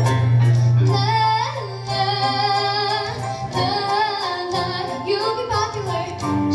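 A young girl singing a melody into a microphone over musical accompaniment with a steady low bass and beat; her voice glides and wavers between held notes.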